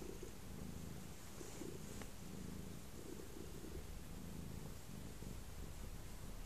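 A grey-and-white domestic cat purring steadily while being stroked: a low, continuous rumble that swells and eases in short cycles.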